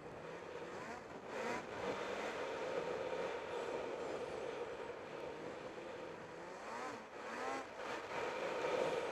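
Snowmobile engine, an 858 on break-in, running under way, its revs rising and falling briefly about one and a half seconds in and again around seven to eight seconds in, over a steady rush of track and wind noise.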